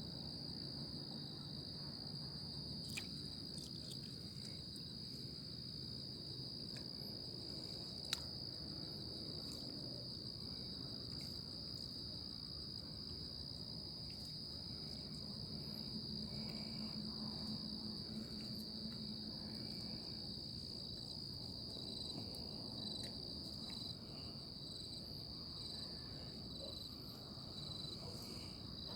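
Night chorus of crickets trilling steadily and high-pitched. A second insect joins in the last several seconds with an even, pulsing trill. A single sharp click about eight seconds in.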